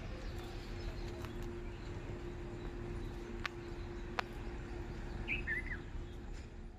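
Outdoor background noise: a low rumble and a faint steady hum, two sharp clicks around the middle, and a short two-note bird chirp about five seconds in.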